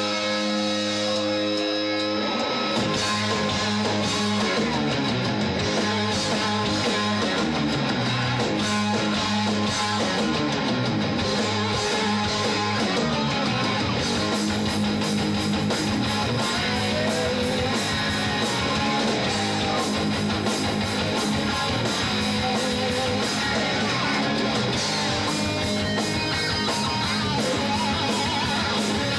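A rock band playing live: distorted electric guitars over a drum kit. A held chord rings for about the first two and a half seconds, then the drums and full band come in and play on steadily.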